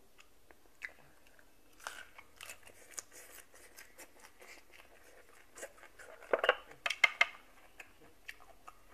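Close-up eating sounds: boiled apple snail meat being chewed, with small clicks of snail shells and a toothpick on the tray, and a run of louder clacks about six to seven seconds in.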